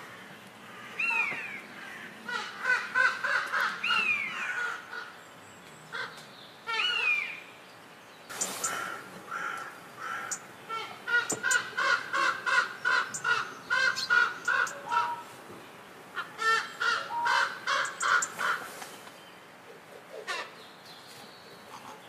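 Common raven calling: runs of short, harsh calls repeated several times a second, in three bursts of a few seconds each. A few short falling calls come in the first seven seconds.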